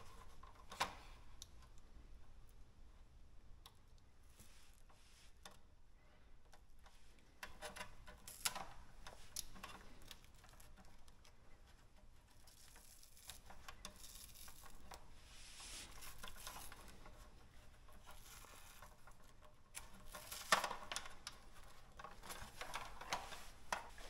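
Faint handling sounds of electrical tape and a foam sleeve being picked and peeled off plastic refrigerator water lines: scattered small clicks and light rustling, with a few sharper clicks.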